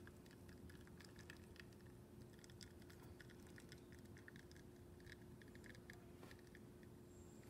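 Near silence: a La Pavoni lever espresso machine pulling a shot, with faint, irregular small ticks over a steady low hum. The grind is too fine, so the shot is choked and the espresso barely drips.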